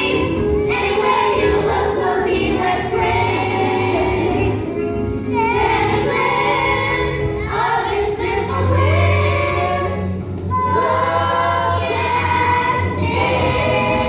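Children's chorus singing a song from a stage musical, with instrumental accompaniment.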